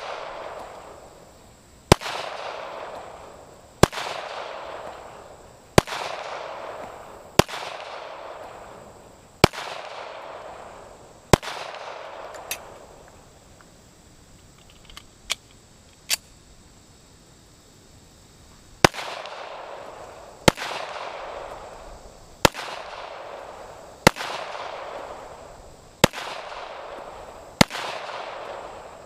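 Handgun shots fired one at a time, about one every two seconds, each followed by a long rolling echo. There are two strings of fire with a pause of several seconds between them, during which only a few fainter pops are heard.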